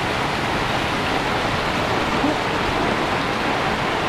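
Floodwater rushing along a flooded road after heavy rain: a steady, even rush of water.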